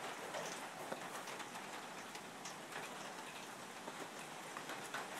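Steady rain falling, an even hiss sprinkled with sharp ticks of single drops striking close by.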